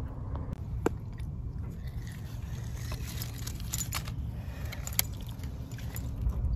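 Small clicks, crackles and rustles of hands working a fish onto a green nylon rope stringer among rocks, with two sharper clicks about a second in and about five seconds in, over a steady low rumble of wind on the microphone.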